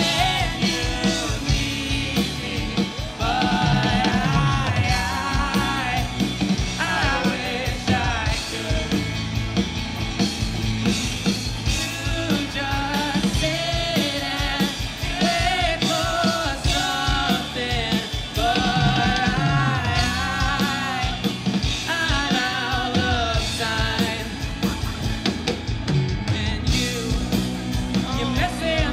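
Live rock band playing, with electric guitars and drums under a sung lead vocal.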